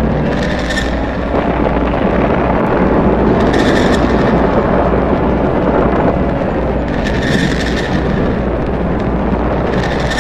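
Air-raid bombardment sound effect: a continuous, loud rumble of explosions. A short, higher-pitched pulse recurs about every three and a half seconds.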